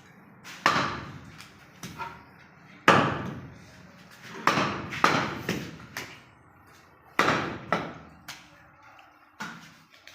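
A butcher's blade chopping through goat leg meat and bone on a chopping block: heavy strikes at uneven intervals of one to two seconds, each ringing briefly.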